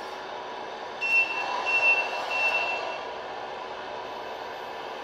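The MFC-03 sound unit of an RC Scania truck plays three short, high reversing beeps about a second in, over its steady simulated engine sound.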